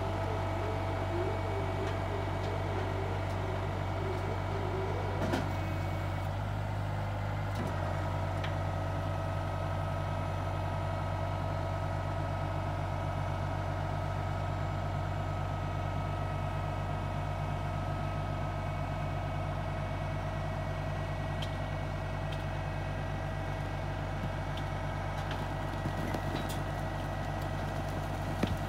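Tractor engine running steadily while driving the hydraulics of a scissor-lift side-tipping trailer as it raises its box, with a steady whine over the engine hum. A few short knocks come near the end as the box begins tipping out manure.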